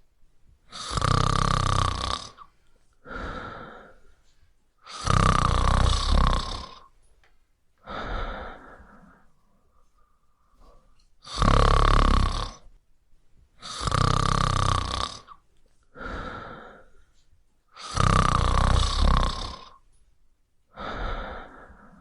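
A person snoring loudly in long snores, each followed by a shorter, quieter one, repeating every few seconds.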